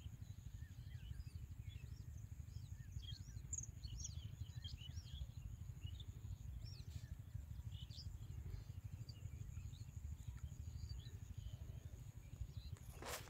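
Small birds chirping in short scattered calls over a steady low rumble and a thin, steady high whine. A sharp knock comes near the end.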